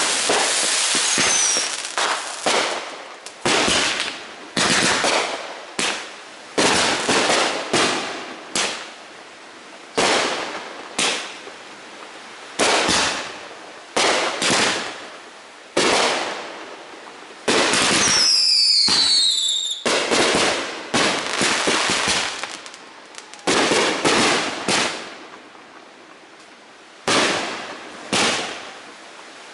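Aerial fireworks bursting one after another, a sharp bang about every second, each trailing off quickly. About two-thirds through comes a denser, longer stretch with several falling whistles.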